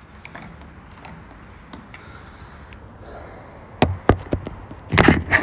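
Handling noise from a phone being moved and set in place: a few sharp knocks and taps near the end, loudest in a quick cluster at the very end.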